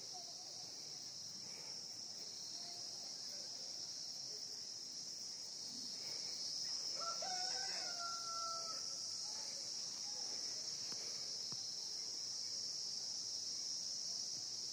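A rooster crows once, about seven seconds in, a single held call lasting about a second and a half. Under it, a steady high-pitched chorus of insects keeps on throughout.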